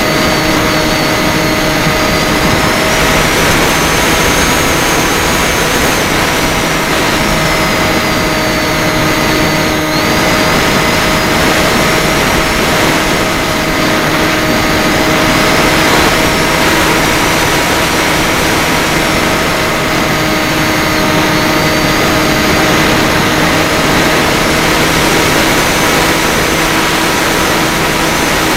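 Small FPV drone's electric motors and propellers running in flight, a steady whine with one higher tone that rises and falls as the throttle changes.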